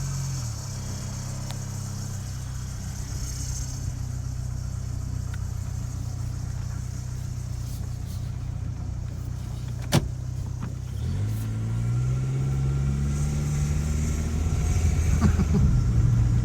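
2000 Toyota Corolla's four-cylinder engine running while being driven, with a steady note. A sharp click comes about ten seconds in; the engine pitch then dips and climbs steadily as the car accelerates.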